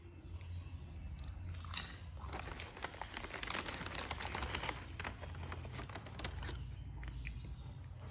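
Potato chip being crunched and chewed close to the microphone: a dense run of crisp crackling starting about two seconds in and lasting about three seconds, then a few scattered crunches, over a low steady rumble.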